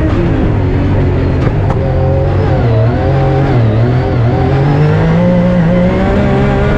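Rally-raid car engine running hard, its pitch dropping and climbing several times as it revs through the gears.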